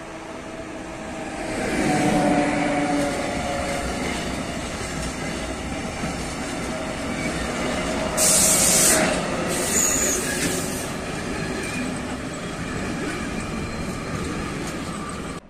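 A freight train of tank wagons passes close by, led by its locomotive, growing louder about two seconds in, with the wheels rumbling and clattering over the rails. About eight and ten seconds in come two short bursts of high hissing, the second with a thin wheel squeal.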